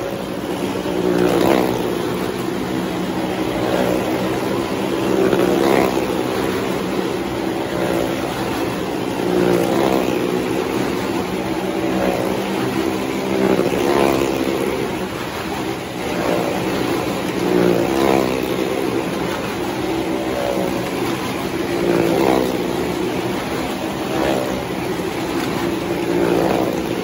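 Cars and motorcycles riding laps around the vertical wooden wall of a well-of-death drum. Their engines drone steadily and swell as each one passes, about every two seconds.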